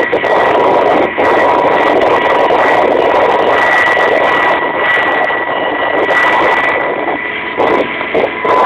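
Kamov Ka-26 helicopter in flight, heard loud from inside the cabin: its two radial piston engines and coaxial rotors make a steady, noisy drone with a thin high whine over it.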